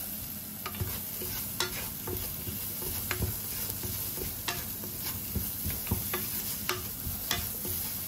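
Thin potato slices sizzling in a nonstick frying pan while a wooden spatula stirs and turns them. The spatula's taps and scrapes against the pan come irregularly, about once a second.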